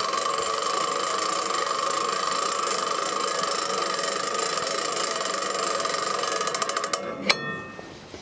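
Wood-Mizer LT15 sawmill head being raised by its powered up/down drive: a steady mechanical whirr with a held high tone, running until about seven seconds in, then stopping with a single clunk.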